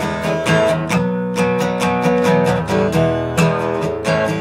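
Acoustic guitar strummed in a steady rhythm, about three or four strokes a second, ringing chords.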